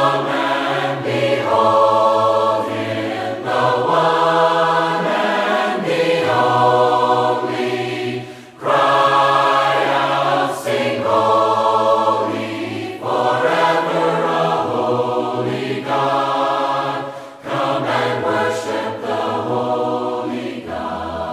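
Choral singing of a slow hymn in held chords over a steady low bass line, sung in long phrases with brief breaks between them.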